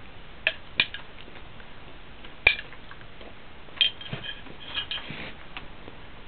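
Spoon clinking against a glass jar: several scattered sharp clinks with a short ring, the loudest about two and a half seconds in.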